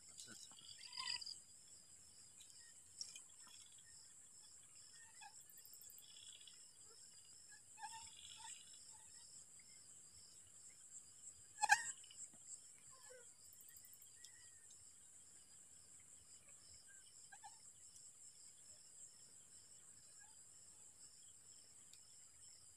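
Crickets and other night insects: a steady high trill with a regular chirp, about two a second. About twelve seconds in there is a single sharp click, the loudest sound here.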